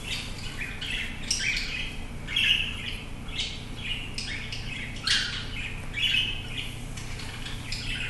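Cockatiel calling in a quick string of short, high chirps, about two a second, loudest about two and a half seconds in.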